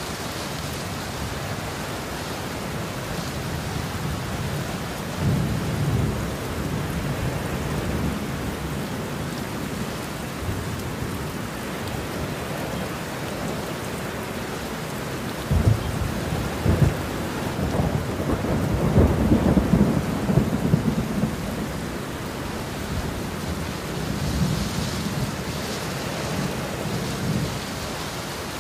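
Heavy rain falling steadily, with thunder rumbling several times. The strongest roll starts with a sudden crack just over halfway through and builds for a few seconds.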